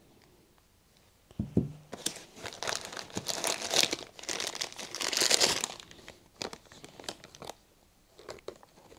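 Clear plastic packaging bag crinkling as it is handled, for about four seconds starting some two seconds in, followed by a few light clicks. A single knock comes shortly before it.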